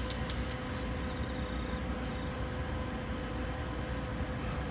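Train approaching in the distance: a low, steady rumble with a faint, steady hum over it.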